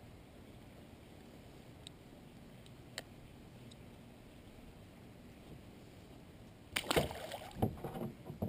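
A faint steady background with a single click about three seconds in. Near the end comes a short run of loud splashes and knocks: a largemouth bass dropped back into the water beside the boat.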